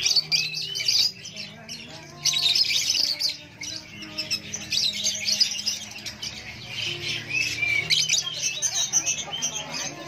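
A crowd of caged lovebirds chattering: dense, shrill chirps and squawks overlapping in clusters, with short arched chirps running through.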